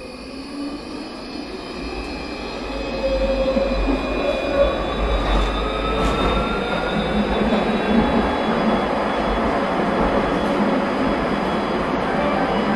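Electric tram pulling away from a stop, heard from inside the passenger saloon: the traction motor whine rises slowly in pitch as it picks up speed, over the rumble of the wheels on the rails. It grows louder over the first few seconds, then runs on steadily.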